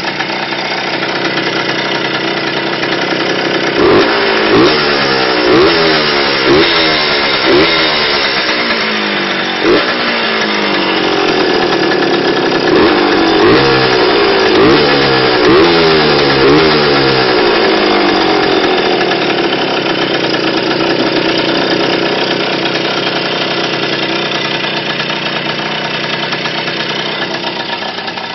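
Fantic Caballero TX-96's 50cc Minarelli two-stroke single idling, then revved in two runs of short throttle blips, each a quick rise and fall in pitch, before settling back to a steady idle. It is running in its first session after years laid up.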